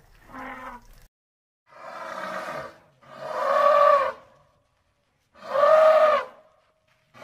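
An elephant trumpeting: a series of about five brassy calls, each about a second long, with short silences between them. The first call is faint and the later ones are loud.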